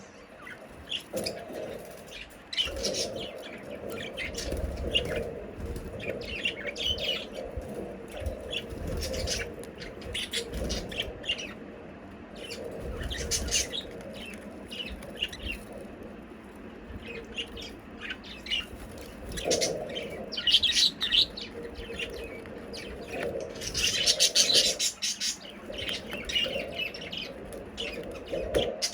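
A group of budgerigars chirping and chattering, with a busy stream of short high chirps that grows loudest about two thirds of the way through.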